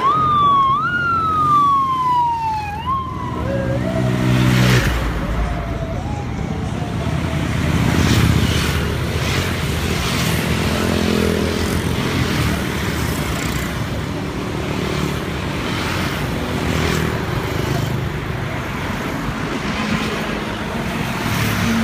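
A siren sweeping with a quick rise and slower fall about once a second for the first three seconds or so, with a fainter glide after it. Then the steady din of motorbike engines and road traffic going past close by.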